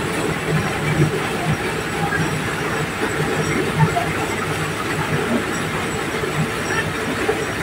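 Diesel-powered mobile corn sheller running steadily as whole dried cobs are fed in and shelled, giving a dense, even machine noise over a low drone.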